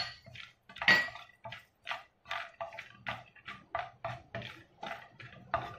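Wooden spatula stirring nuts in ghee in a non-stick frying pan, a short scrape with each stroke, roughly three a second.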